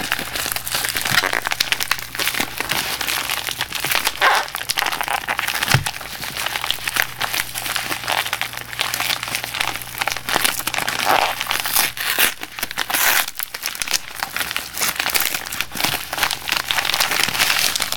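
Packaging crinkling and rustling continuously as a laptop battery's wrapping is pulled open by hand, with many small crackles throughout.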